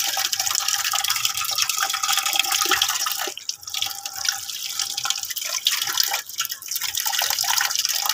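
Water running from a blue plastic tap into a metal basin: a steady splashing stream, briefly quieter a little over three seconds in.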